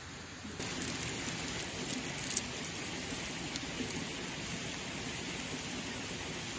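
Steady rushing of a mountain stream, with a few light clicks and crackles between about one and two and a half seconds in.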